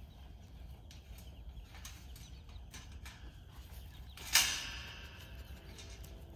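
Black wire pen panels being handled: faint clicks and rattles, then one sharp metallic clank with a brief ring about four seconds in.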